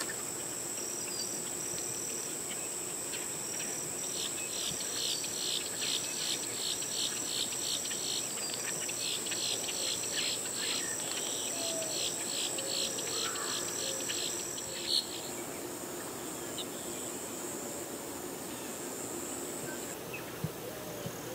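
Insects singing: a steady high-pitched trill, joined from about four seconds in by a second insect pulsing rhythmically, which stops about fifteen seconds in with a brief tick.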